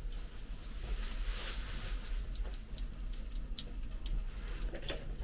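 Leftover water trickling and dripping from a leaking valve on a railway passenger car's water line after the supply has been shut off, the flow dying away. Separate drips stand out from about halfway.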